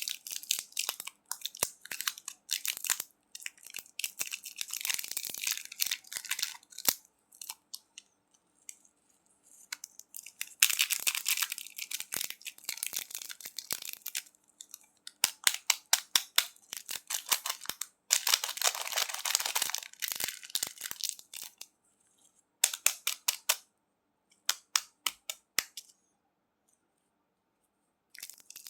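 Close-miked candy crunching: bursts of rapid, crisp cracks and crackles, each lasting a few seconds, separated by short silent pauses.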